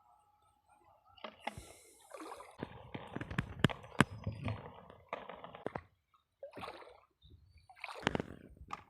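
Water splashing and sloshing in irregular bursts, with a few sharp knocks among them around the middle.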